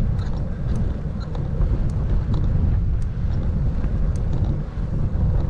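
Wind buffeting the microphone on an exposed climb by bike, a steady rough low rumble, with faint scattered ticks above it.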